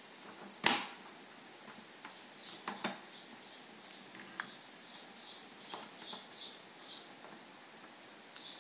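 Metal window fitting, a GU sliding carriage and its wire leg spring, being handled and worked loose: a sharp metallic click about a second in, another near three seconds, then a run of short high squeaks about two a second as the parts are worked.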